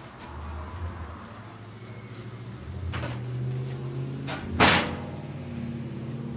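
Electric range's oven door being pushed shut: a knock about three seconds in, then a loud bang a second and a half later.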